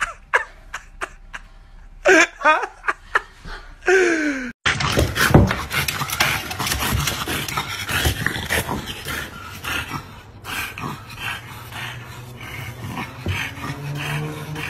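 A woman's voice crying out and laughing for the first few seconds. Then a French bulldog pants hard and snuffles in quick, ragged strokes, and a low, steady growl comes in near the end.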